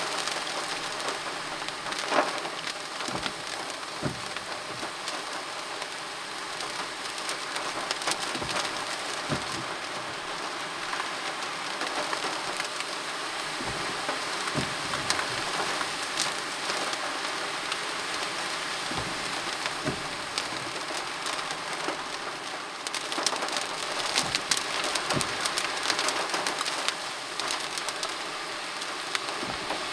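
Rain falling on a car's roof and windscreen, heard from inside the car: a steady hiss with scattered sharp hits of single drops. It grows heavier about two thirds of the way in.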